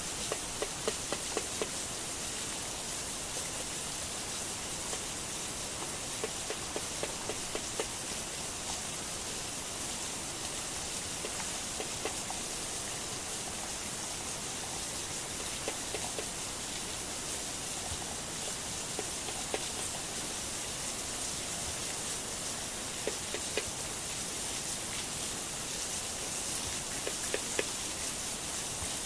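Steady hiss with a few faint clicks and taps scattered through it.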